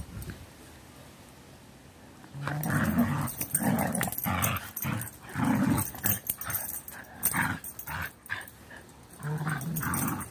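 Two dogs play-growling in rough, repeated bursts as they pull against each other on a frisbee in a tug of war. The growling starts a couple of seconds in and pauses briefly before a last burst near the end.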